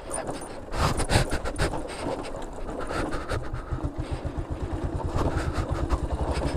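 Motorcycle engine running with a fast, even low pulsing, mixed with rough wind and road noise and a few knocks in the first second or two.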